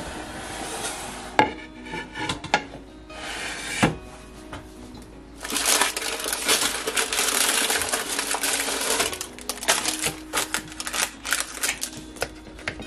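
Kitchen utensils handled against dishes: light clicks and two sharper knocks, then about four seconds of loud crackling and scraping, then a run of quick clicks.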